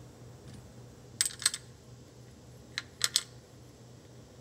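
Light metal-on-metal clicks and clinks of small steel differential parts (spider gears) being picked up and fitted into a Can-Am Smart-Lock front differential's carrier: a pair of clicks about a second in and a quick cluster of three near three seconds.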